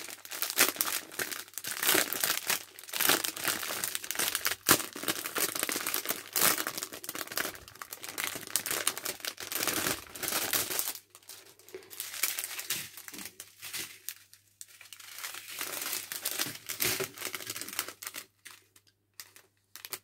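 Small clear plastic bags of diamond-painting drills crinkling as they are handled. The crinkling is dense and continuous for about the first half, then sparser and fainter.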